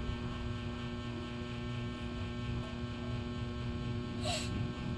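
Steady electrical hum with a low rumble underneath, and one short breathy sound about four seconds in.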